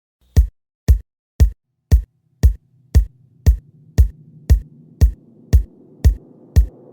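Drum machine kick drum beating steadily about twice a second, alone at first. A low synthesizer layer fades in from about three seconds in and grows under it: the beat-only intro of an electro-freestyle dance track.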